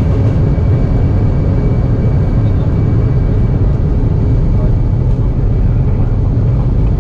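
Steady, loud rumble of an Embraer 190's General Electric CF34-10E turbofans and the airframe, heard in the cockpit as the jet rolls down a wet runway on its takeoff run.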